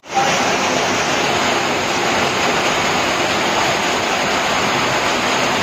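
Muddy floodwater gushing and pouring in a steady, loud rush of water.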